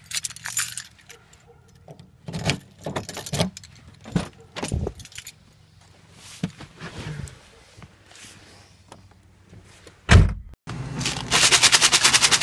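Car keys jangling and clicking at a car door, with scattered handling clatter, then one heavy thump about ten seconds in, as of the car door shutting. Near the end, a fast, even rattle of coffee beans shaken in a lidded plastic cup.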